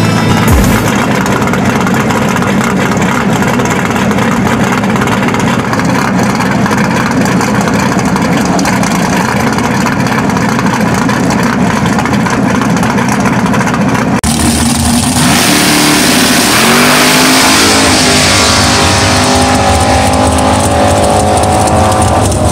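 Drag race car engine running loudly and steadily, its low rumble holding pitch. About two-thirds of the way through it gets louder and brighter, with the pitch climbing several times as the engine revs.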